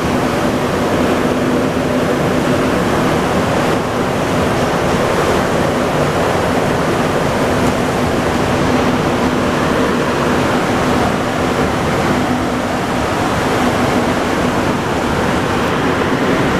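Interior of a Montreal Metro MR-73 rubber-tyred subway car running between stations: a loud, steady rolling noise from the tyres and running gear, with a low steady hum underneath.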